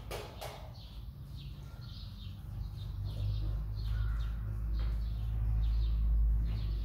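Paint roller on an extension pole being worked up and down a wall, laying on a first coat, with a soft repeated rasp about twice a second. A low rumble runs underneath and grows louder past the middle.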